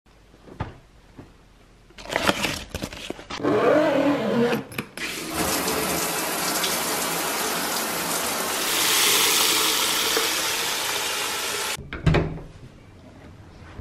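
A handheld shower head sprays water in a tiled shower: a steady, dense hiss lasting about six seconds that cuts off suddenly. Before it come a few clicks and knocks as the mixer tap is worked. Just after it, a door handle clicks.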